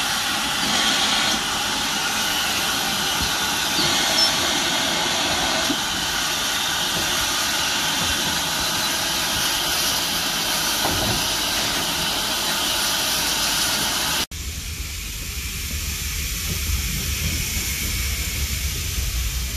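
Great Western tank steam locomotive standing at the platform, hissing steadily as it lets off steam. After a sudden cut about fourteen seconds in, a low rumble takes over, heard from inside a railway carriage.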